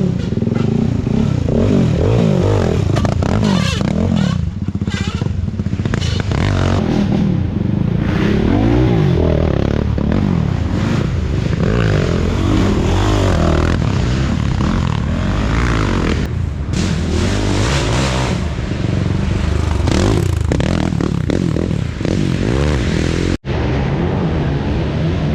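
Racing ATV engines revving hard, the pitch climbing and falling again and again as several quads accelerate and pass. The sound cuts out abruptly for an instant near the end.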